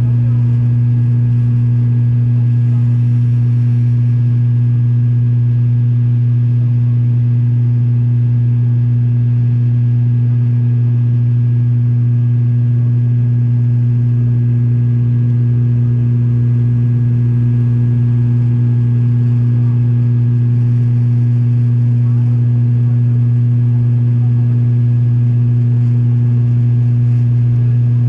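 Steady drone of an airliner's engines heard in flight, a constant deep hum with a fainter higher tone, unchanging throughout.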